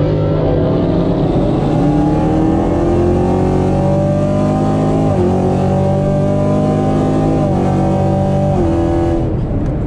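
Car engine under hard, full-throttle acceleration, heard from inside the cabin. Its pitch climbs steadily, drops with an upshift about halfway through, climbs again and drops with further gear changes near the end.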